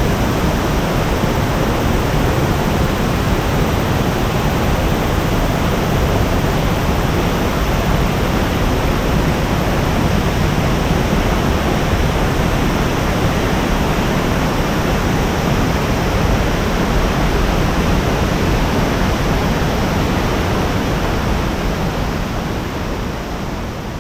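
Heavy, steady rush of water pouring over a low waterfall with a large volume of flow, a dense roar spread evenly from low to high pitches. It begins to fade out over the last few seconds.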